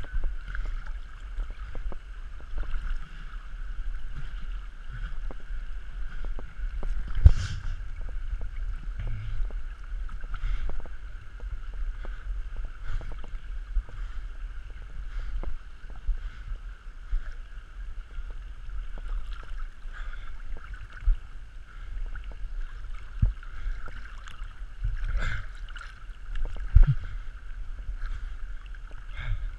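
Stream water sloshing and gurgling around an action camera held at the waterline, with a steady low rumble and occasional sharp knocks, the loudest about seven seconds in and near the end.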